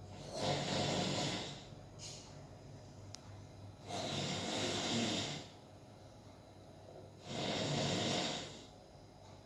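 A person snoring loudly: three long snores about three and a half seconds apart, each lasting about a second and a half, with a short fainter breath about two seconds in.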